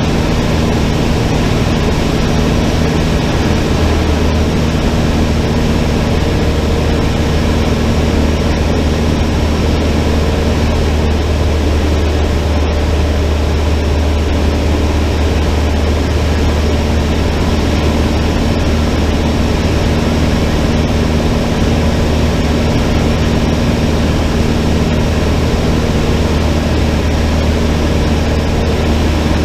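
Cessna 152's four-cylinder Lycoming piston engine and propeller running at a steady power setting, an even low drone with a constant hum that does not change in pitch.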